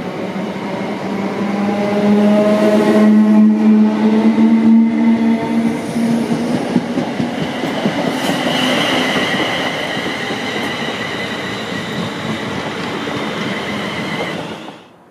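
Electric multiple-unit train, a Class 319 running with a London Midland Class 350 Desiro, passing through a platform at speed. A loud steady rush of wheels on rail carries gliding motor whines and is loudest in the first few seconds. A high steady whine holds through the second half, and the sound cuts off sharply just before the end.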